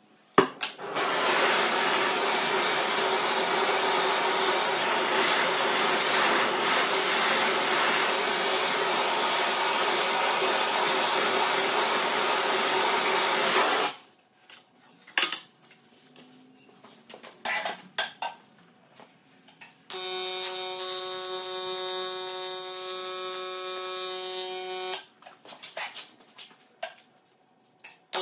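AC TIG welding arc on a cast aluminum pump housing, buzzing steadily for about five seconds in the second half and striking up again right at the end. It follows a long, steady hiss of about thirteen seconds and a few clicks and knocks.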